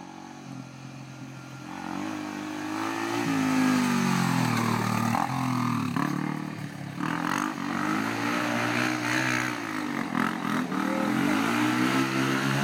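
Yamaha sport quad (ATV) engine revving up and falling back several times as it rides and turns close by, getting louder about two seconds in.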